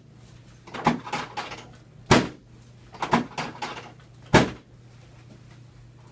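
Chiropractic drop table's pelvic section dropping under the adjusting thrust: four loud, sharp clacks about a second apart, the first and third each followed by a few lighter clicks.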